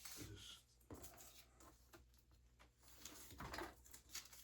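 Near silence, broken by a few faint clicks and rustles from small plastic parts and sticker backing being handled.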